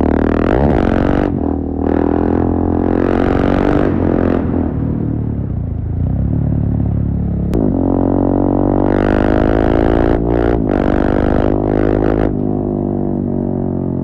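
A 2017 KTM 690 Duke's single-cylinder engine, fitted with a full Akrapovic exhaust, pulls hard on the road. Its pitch rises as it accelerates, and the exhaust grows louder and then drops back several times as the throttle opens and closes.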